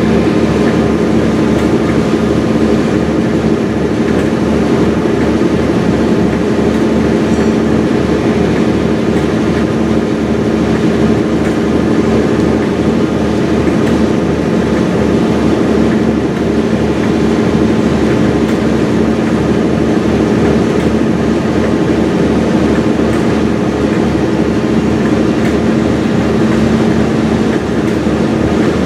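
Heritage diesel locomotive running steadily, with a low, regular throb under a constant engine tone.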